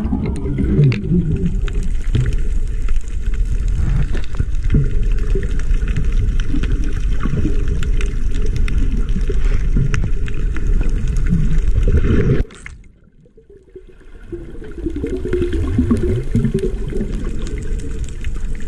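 Underwater sound picked up by a camera in its waterproof housing while snorkeling: a loud low rumble of moving water with wavering, bubbly gurgles. About twelve seconds in it drops away suddenly for a second or two, then builds back up.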